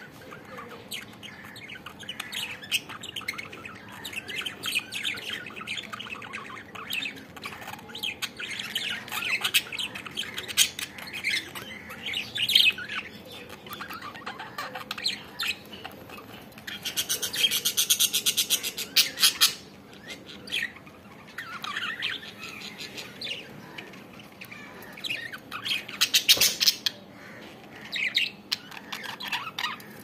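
Budgerigars chattering: a continual warble of short chirps and squawks, with a faster, louder run of rapid chirps about two-thirds of the way through.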